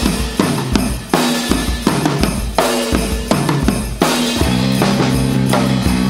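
Surf-rock band's drum kit playing a break of kick and snare hits. About four and a half seconds in, the rest of the band comes back in with sustained notes under the beat.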